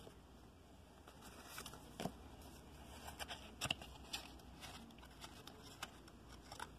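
Faint rustling and a few soft clicks of trading cards and packs being handled, over a low steady hum; the clearest clicks come about two seconds in and a little before four seconds.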